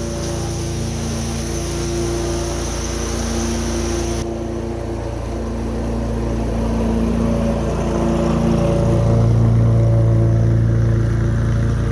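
Lawn mower engine running steadily, growing louder as it comes closer, loudest about nine to eleven seconds in.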